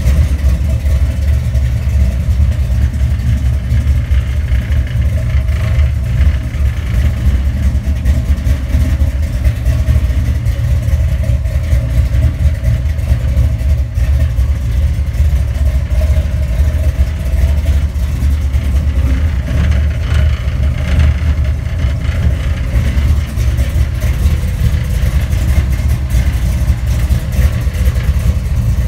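Dodge Dakota race truck's engine idling steadily, a loud, low exhaust note that stays even throughout with no revs.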